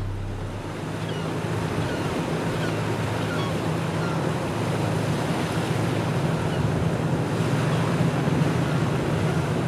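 Steady wash of the sea with a low, steady engine drone from a motor cruiser underneath.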